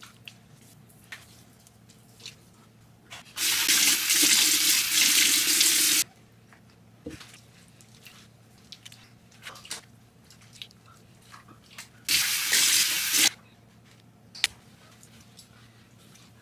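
Bathroom sink tap running twice, first for about three seconds and later for about a second, with water splashed from cupped hands onto the face. Small splashes and drips in between.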